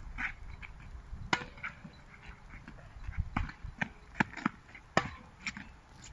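Tennis ball being hit back and forth in a rally, sharp racket strikes and ball bounces on a hard court, several pops in an irregular run.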